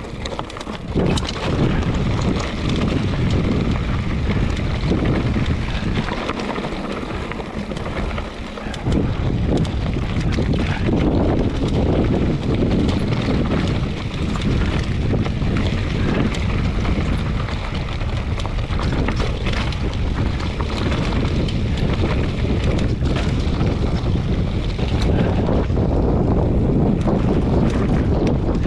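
Wind rushing over the camera microphone while riding a trail, with a steady low rumble and scattered knocks from the rough ground.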